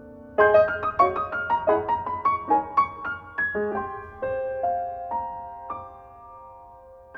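Background piano music: a quick run of notes starts about half a second in, slows, and settles into a held chord that fades.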